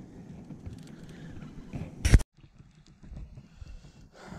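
Low rumbling background with faint scattered knocks, a single loud thump about two seconds in, then a sudden break of silence lasting under a second.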